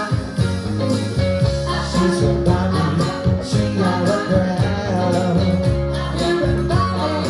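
Live band playing an upbeat rock-and-roll number, a male voice singing over guitar and a steady, rhythmic bass line.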